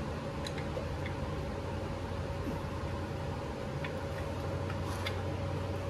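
Steady mechanical hum in a workshop, with a few faint metal clicks from an Allen key turning the screws into a Harley-Davidson Shovelhead's primary cover by hand.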